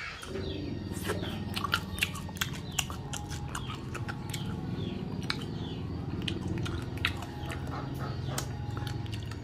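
Close-up mouth sounds of a person chewing and biting into cooked coconut worms (palm weevil larvae): many short wet clicks and smacks, over a low steady hum.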